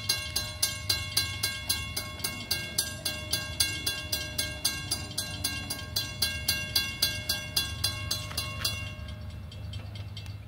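Railroad grade-crossing warning bell ringing fast and evenly, about three strikes a second, as the crossing is activated for an approaching train and the gates come down. It stops about nine seconds in, leaving a low steady hum.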